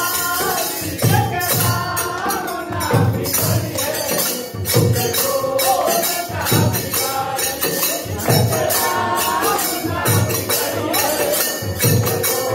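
Men singing a Bhojpuri devotional song to a steady drum beat about once a second, with jingling hand percussion.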